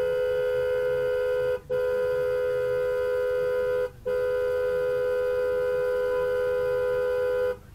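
Car horn held down in long, angry blasts, two close notes sounding together, broken by two brief gaps and cutting off near the end: rage honking at a car ahead that is holding up the intersection.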